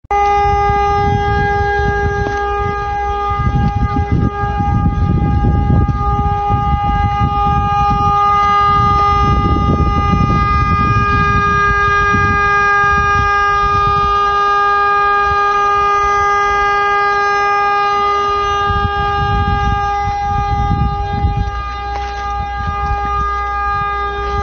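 A vehicle horn sounding continuously in one steady, unwavering tone, over low rumbling noise that swells and fades.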